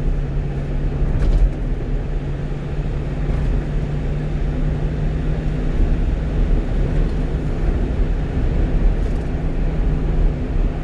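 Steady engine and road-tyre drone of a one-ton truck cruising on an expressway, heard from inside the cab: a constant low hum over rumble.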